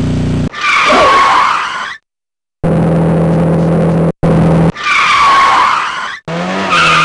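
Car chase sound effects: a steady engine drone alternating with long tyre screeches, three of them, each starting and stopping abruptly, with a short dead silence about two seconds in.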